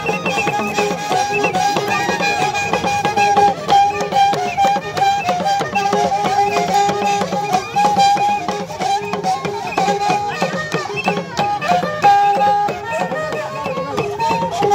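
Traditional dance music: a sustained, slightly wavering melodic line over fast, dense percussion.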